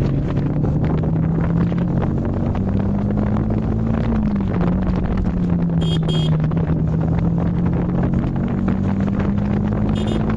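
Yamaha MT-15's 155 cc single-cylinder engine running under way, its pitch stepping up, dropping about four seconds in, then holding and rising again, with wind buffeting the microphone. A horn beeps twice about six seconds in and once more near the end.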